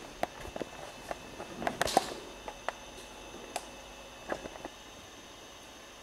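Scattered small clicks, taps and handling noises, loudest in a short cluster about two seconds in, with a few more single clicks after it, over a faint steady hiss.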